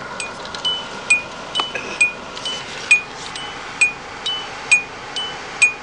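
A Hyundai's electronic warning chime dinging steadily, about once a second. This is the kind of chime that sounds while the driver's door stands open.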